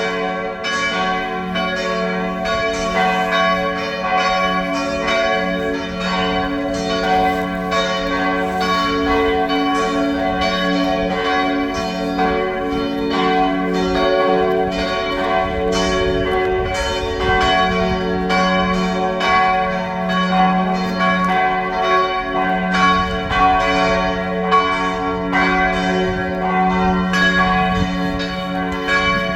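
Church bell swung à la volée, rung at the end of Mass: strokes following each other quickly and evenly, their ringing hum overlapping into a continuous peal.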